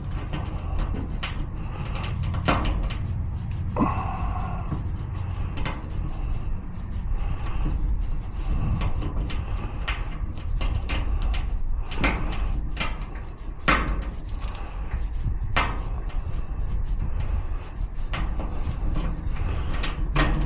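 Lock-picking tools working in a garage door lock cylinder: scattered sharp clicks and scrapes of metal in the lock, over a steady low rumble.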